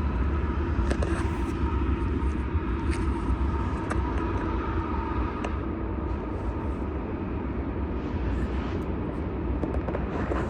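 Steady low outdoor rumble with a few faint clicks and knocks from hunting gear being packed up.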